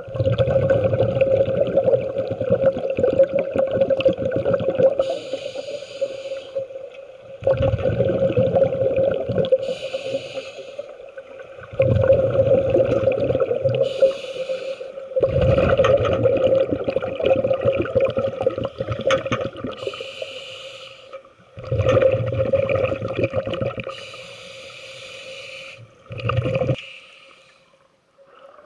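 Scuba diver breathing underwater through a regulator: long, bubbling exhalations, each followed by a short hissing inhalation, about five breaths in all.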